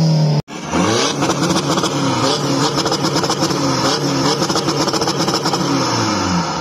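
SEAT Exeo saloon's engine revved repeatedly, the pitch rising and falling in quick blips and dropping back near the end. About half a second in, another car's engine, falling in pitch, cuts off abruptly.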